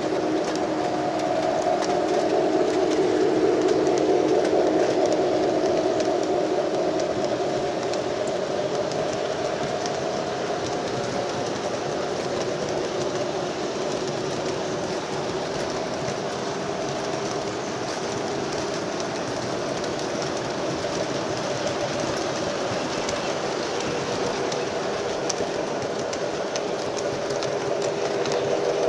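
O-gauge model freight trains running on the track: a steady rolling hum of wheels and motors with light ticking over the rails.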